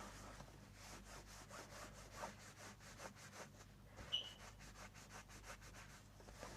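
Faint rubbing and small clicks of fabric being handled and smoothed on a work surface, with one brief high tone about four seconds in.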